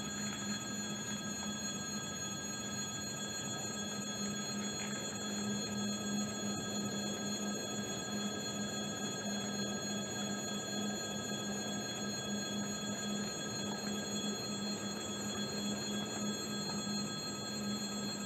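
Railway level-crossing warning bell ringing continuously at a steady level: the crossing is closed for an approaching train.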